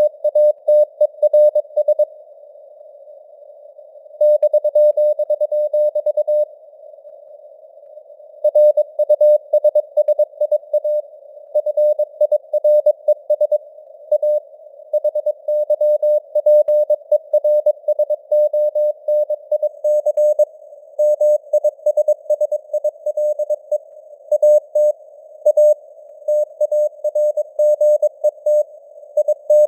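Morse code (CW) sent at 22 words per minute: a single beeping tone of about 600 Hz keyed into dots and dashes, over a faint hiss of simulated radio noise. The keying stops twice for about two seconds, about two seconds in and about six seconds in, leaving only the hiss.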